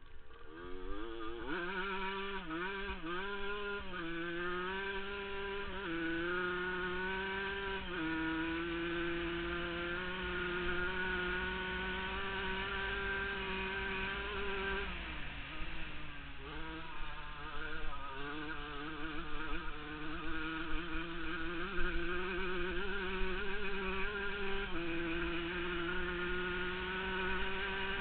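1979 Yamaha YZ100's two-stroke single-cylinder engine running under way. The revs rise and fall quickly in the first few seconds, then hold mostly steady with small steps down in pitch. About halfway through the revs dip and pick back up.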